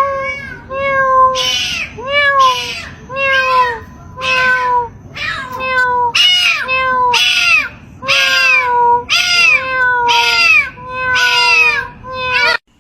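A cat meowing over and over, a bit more than one loud meow a second, each call arching up and then falling in pitch; the meowing cuts off suddenly near the end.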